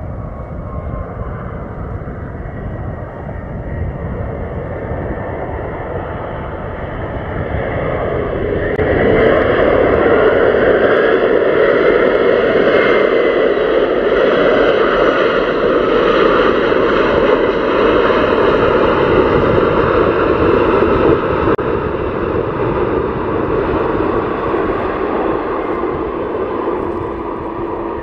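Tupolev Tu-204-300 airliner's two PS-90A turbofan engines during the landing roll, with a falling whine at first. About nine seconds in, the engine noise swells and stays loud for some twelve seconds before easing off near the end, typical of reverse thrust being applied after touchdown and then released.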